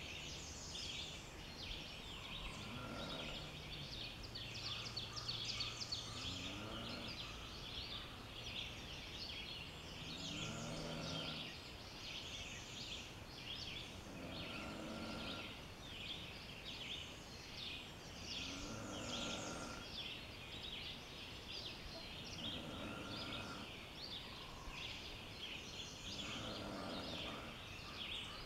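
Forest dawn chorus: many birds chirping and trilling at once in a dense, high-pitched, continuous wash, with a lower, rougher call repeating about every four seconds.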